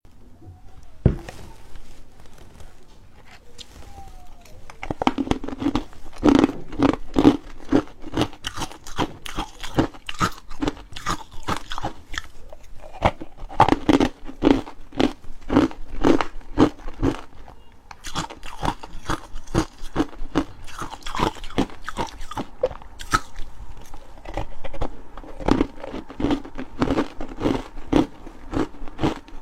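Ice being bitten and chewed close to the microphone: a dense run of sharp crunches and cracks that starts about five seconds in, after a single knock about a second in.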